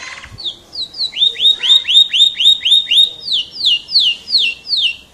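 Canary (F1) singing loudly in repeated clear whistled notes: a fast run of upswept notes, about four a second, gives way about three seconds in to slower falling notes.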